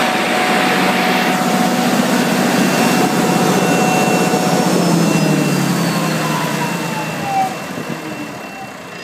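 Kohler 100 kW diesel generator set running steadily, then shut down from its control panel. After about five seconds its pitch falls and the sound fades as the engine winds down.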